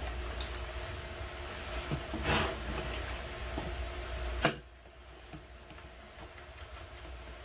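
Small clicks and short scrapes of a precision screwdriver working the battery screws of an opened laptop, over a steady low hum. A sharp click about four and a half seconds in is the loudest sound, and the hum drops away after it.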